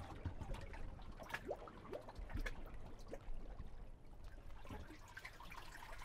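Harbor water lapping among breakwater rocks, making irregular small bloops and drips, like bubbles popping in the gaps, over a faint low rumble.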